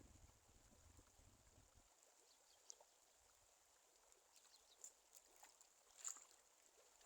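Near silence: faint outdoor ambience, with a low rumble that fades out about two seconds in and a few faint scattered clicks.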